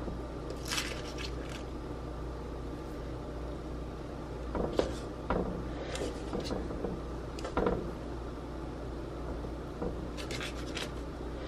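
Hands working dough strips on a parchment-lined metal baking tray: two short spells of paper rustling, one about a second in and one near the end, and a few sharp knocks in the middle as the tray shifts, over a steady low hum.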